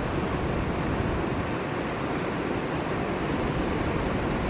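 Ocean surf breaking: a steady rushing noise of large waves and whitewater.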